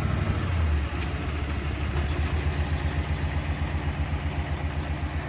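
1968 Oldsmobile 442's 400 cubic-inch V8 idling on its stock, non-aggressive exhaust, a steady low rumble with an even pulse.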